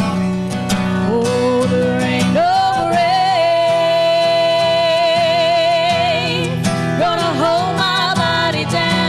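A woman singing a gospel song over a strummed acoustic guitar; about two seconds in her voice slides up into one long held note with vibrato, then she moves on to a shorter phrase.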